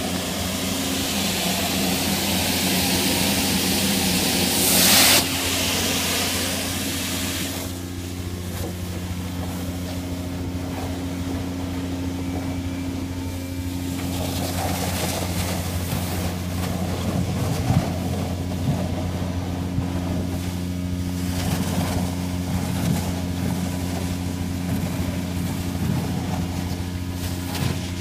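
Quiet Cube 200 industrial vacuum running with a steady hum while its large hose sucks up sand. Air rushes loudly into the hose with a brief louder burst about five seconds in, then the rush drops about eight seconds in, and scattered ticks of grit rattling through the hose follow.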